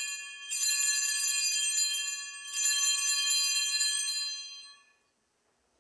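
Altar bells (Sanctus bells) rung as the chalice is elevated at the consecration. The end of one ring is followed by two more rings of about two seconds each, a bright jingling clash of small bells, dying away about five seconds in.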